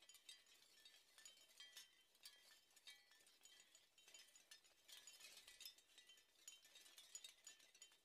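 Seashell wind chime: shells swaying in the wind and knocking together in a faint, continuous, irregular clinking, each knock leaving a brief chime-like ring.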